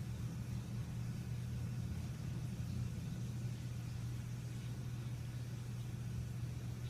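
Two late-1960s Hunter-made box fans coasting down after being switched off, their blades still spinning with a steady low drone.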